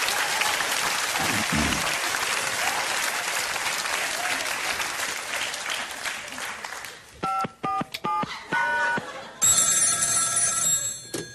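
Studio audience applause that fades away, then about six short two-tone telephone keypad beeps as a number is dialled, followed by a telephone ringing tone.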